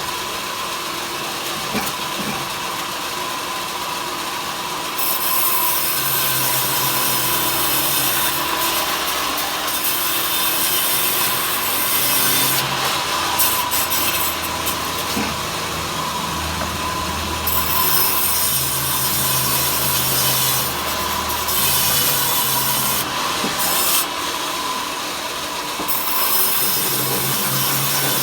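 Power saw cutting wood into thin slats: a steady motor hum under a high hissing cut that starts and stops with each pass of the wood through the blade.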